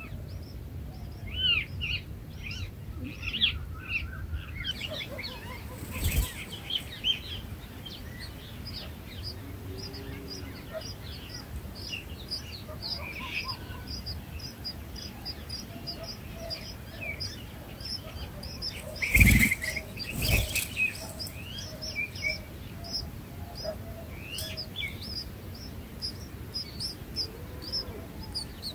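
Small birds chirping: a steady string of short, high chirps several a second, with lower, swooping calls in the first few seconds. Three loud, sharp thumps break in, one about six seconds in and two close together about two-thirds of the way through.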